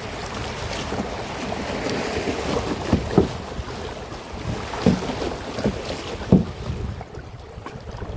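Shallow river rapids rushing and splashing around a plastic kayak, with a few brief louder splashes. The rush eases near the end as the water smooths out.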